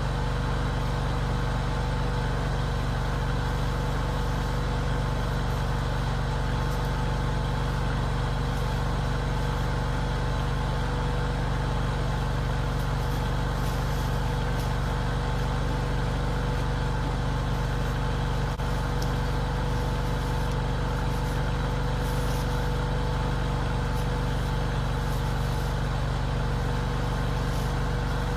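Mini skid steer's engine running steadily at a constant speed, with no revving.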